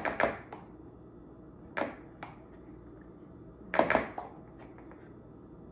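A spoon tapping and scraping against a cocoa tin and a plastic mixing bowl as tablespoons of cocoa powder are scooped in: a few short clicks at the start, two more about two seconds in, and a quick cluster about four seconds in.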